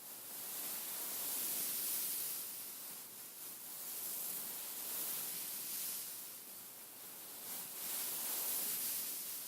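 Fingers rubbing and scratching over a beaded pillow, a continuous crisp rustling hiss that swells and fades in slow waves every few seconds.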